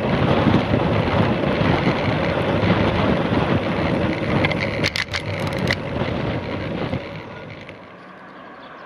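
Wind buffeting the microphone of a camera on a moving bicycle, mixed with road noise from the tyres. A few sharp clicks and rattles come about five seconds in. About seven seconds in, the wind noise stops and gives way to a much quieter steady background.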